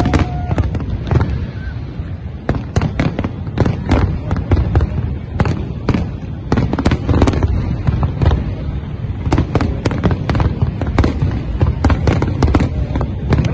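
Aerial firework shells bursting in rapid succession: many sharp bangs close together over a continuous low rumble, with no let-up.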